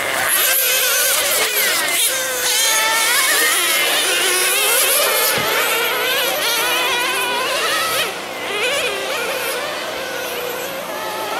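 Several nitro RC sedans' small two-stroke glow engines buzzing at high revs, their overlapping pitches rising and falling as the cars accelerate and brake around the circuit.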